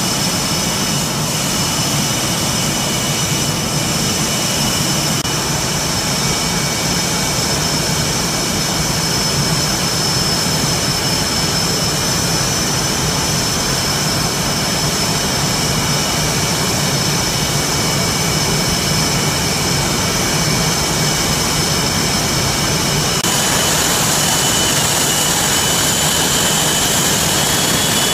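Jet engines of Blue Angels F/A-18 Hornets running on the flight line: a steady roar with high, steady turbine whines. About 23 s in the whine changes, and near the end one whine climbs slightly in pitch.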